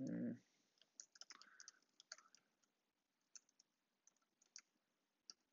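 Faint computer keyboard typing: irregular key clicks as a command-line path is typed.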